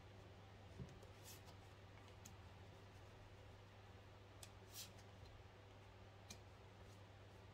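Near silence with a low steady hum, broken by a few faint swishes and ticks of tarot cards being dealt and slid onto a tabletop.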